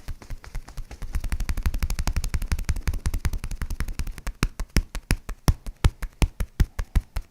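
Rapid series of sharp mechanical taps, about eight to ten a second with a low thud under each from about a second in. From about four seconds in they slow to separate, louder clicks about three a second.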